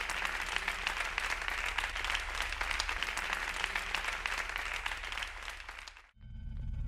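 Concert audience applauding, a dense patter of many hands clapping that fades and cuts off about six seconds in. A low steady hum comes in just after, near the end.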